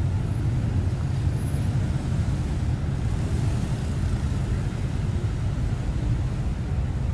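City street ambience: a steady low rumble of passing traffic.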